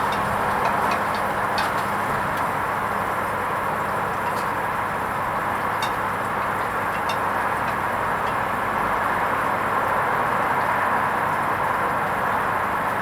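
Hoover Vision HVP16 washing machine partway through a wool rinse cycle: a steady rush of water with a few light clicks.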